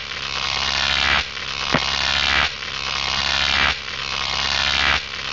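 End-card audio loop: a dense, noisy electronic sound over a steady low hum that swells and drops back about every one and a quarter seconds, with a single click about two seconds in.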